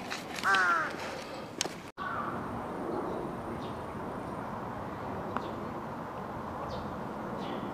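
Steady open-air background noise in a park. About half a second in comes one short, loud call made of a few quick notes that bend in pitch, and about two seconds in the sound cuts out for a moment.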